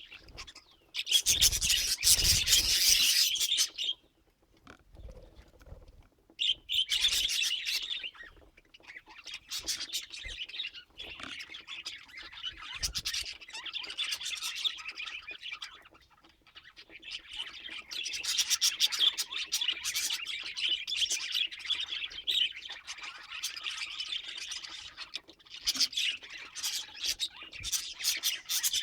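Budgerigar chattering and warbling in long, busy bouts, with a pause about four seconds in and a brief lull around sixteen seconds in.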